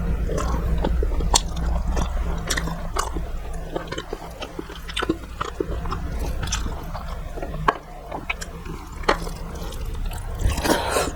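A person chewing food close to the microphone, with frequent sharp clicks and smacks, over a steady low hum.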